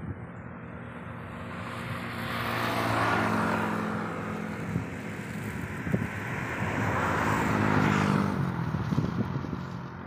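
Two motor vehicles passing by, the first about three seconds in and the second near eight seconds, each a hum of engine and tyres that swells and then fades.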